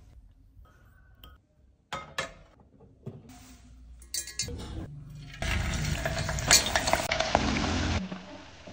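A few clinks and taps of kitchenware, then from about halfway a loud sizzle of floured chicken pieces deep-frying in hot oil, with chopsticks clicking against the pot. Near the end it drops suddenly to a soft, steady bubbling.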